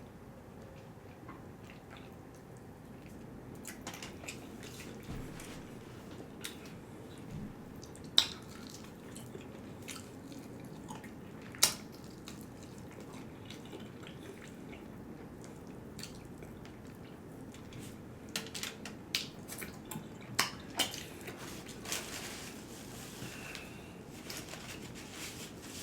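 Person eating fried chicken with quiet chewing and mouth sounds, punctuated by sharp clicks: two louder ones about 8 and 12 seconds in, and a run of small ones near the end.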